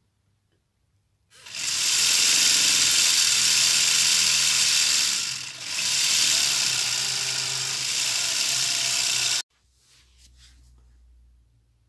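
Lego cylinder engine running at speed, its plastic pistons, shaft and gears making a steady rattling buzz as it spins a Lego drill-bit attachment. It starts about a second in, dips briefly midway and cuts off suddenly near the end.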